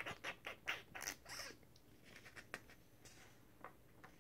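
Pages of a paperback picture book being turned and handled: a quick run of paper rustles and crinkles for about a second and a half, then a few faint ticks.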